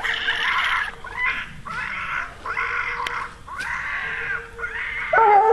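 Coonhound barking treed, a rough bark repeated about twice a second at the base of the tree where a raccoon is treed.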